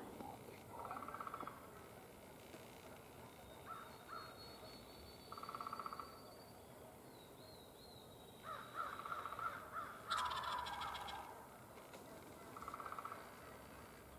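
Eastern wild turkey gobbler calling: one loud gobble about ten seconds in, with several short rasping calls at intervals before and after it.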